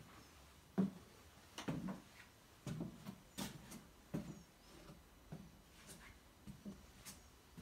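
Footsteps on a wooden floor at a slow walking pace, a soft knock roughly every second.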